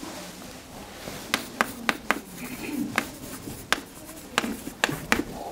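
Chalk writing on a blackboard: a string of sharp, irregular taps with light scratching as letters are chalked on.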